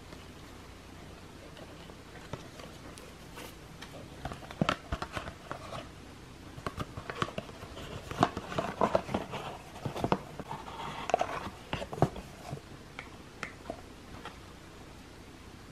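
Paper shopping bag and card gift box being handled: dense rustling and sharp crinkly clicks as the box is drawn out of the bag and turned over, busiest through the middle and sparse at the start and end.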